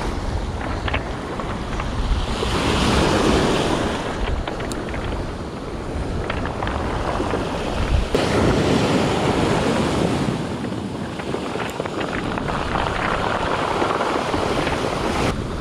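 Sea waves breaking and washing up over a pebble beach, rising and falling in surges a few seconds apart, with wind buffeting the microphone.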